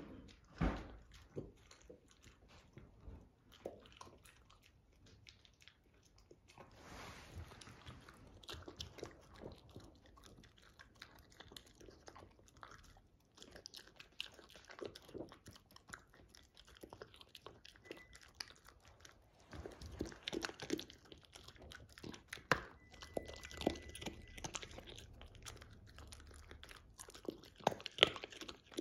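A dog crunching and chewing dry kibble, with irregular crisp crunches throughout and louder clusters of crunching about two-thirds of the way in and near the end.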